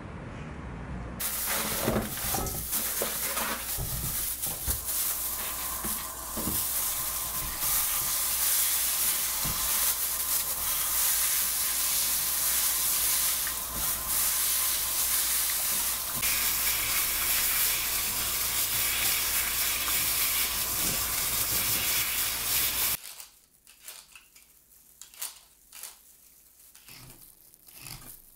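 Tap water running into a stainless-steel sink as hands wash something in a bowl: a steady, loud hiss of water with occasional knocks against the bowl. About 23 seconds in, the water stops abruptly, leaving quieter clicks and rustles of peeled roots being handled in a metal bowl.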